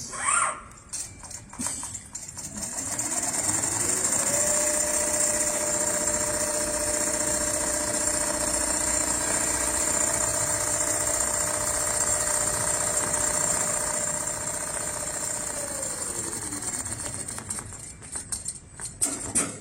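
Automatic CNC sewing machine speeding up over a couple of seconds, running at a steady speed for about eleven seconds, then slowing to a stop.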